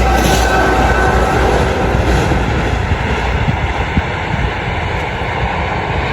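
A passing train's steady rushing noise on the track, easing off a little after about two and a half seconds.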